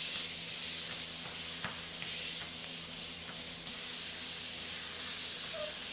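Treadmill running under a walking puppy: a steady hiss from the belt with a low motor hum. A few light metallic clinks from the leash clip and collar come through, the sharpest two close together near the middle.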